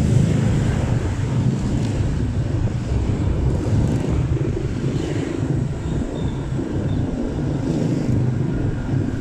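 Motorcycle on the move: engine running with a steady low rumble of wind buffeting the microphone.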